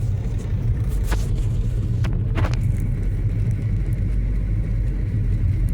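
Steady low rumble of a small four-cylinder car driving on snowy roads, heard from inside the cabin, with two brief knocks about one and two and a half seconds in.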